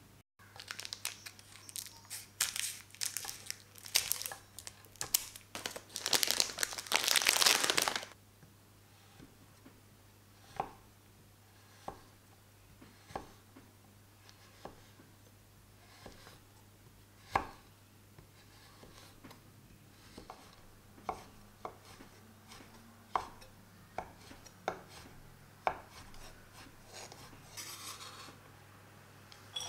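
Dense crinkling and tearing noise for the first several seconds. Then a chef's knife chops a dark chocolate bar on a wooden cutting board, in single sharp chops roughly once a second.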